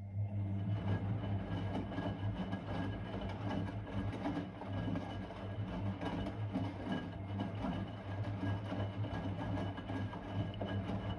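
Blomberg WA391 washing machine starting to run, with a steady low motor hum and an irregular churning rattle from the drum.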